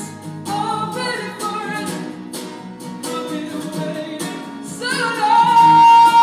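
Male rock singer's high voice singing over a strummed Gibson Hummingbird acoustic guitar. About five seconds in he climbs to a loud, long held high note, which the vocal coach hears as pushed hard, a bit too much.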